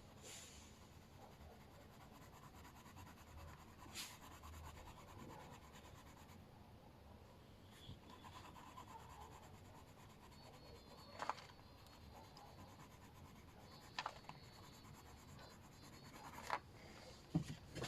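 Faint scratching of colouring strokes on paper. A handful of short sharp taps come through it, most of them in the second half.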